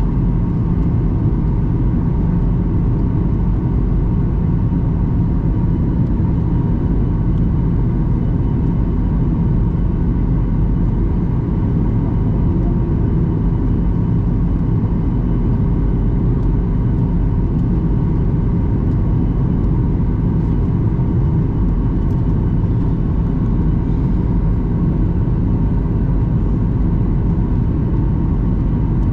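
Steady cabin drone of a Boeing 737-800 in flight, heard from a window seat: the CFM56-7B turbofans and airflow making an even rushing rumble with a few faint steady whining tones over it.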